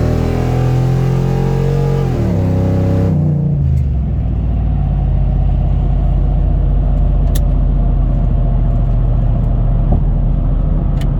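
Vehicle engine held at high revs that drop back about two seconds in, then settling into a steady low idle rumble, with a few faint clicks later on.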